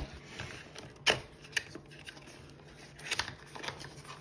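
Cardboard packaging being handled: scattered light taps, scrapes and rustles as a paperboard insert is lifted out and a small cardboard accessory box is slid open. The sharpest click comes about a second in.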